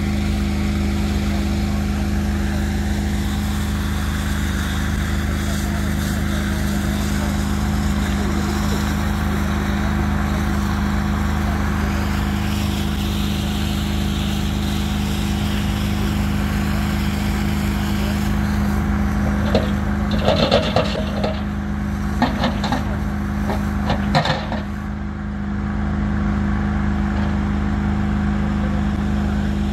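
A large engine running steadily, a constant even hum. A few brief louder noises break in about twenty seconds in.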